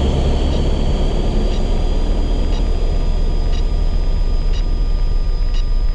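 Steady drone of a Piper Cherokee's piston engine and propeller in flight, heard inside the cabin. Faint high ticks come through about once a second.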